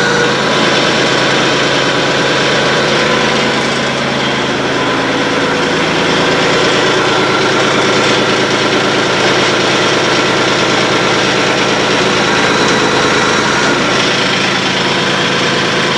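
LS XJ2025 compact tractor's diesel engine running steadily while the backhoe's hydraulics are worked, with a slight change in tone about five seconds in.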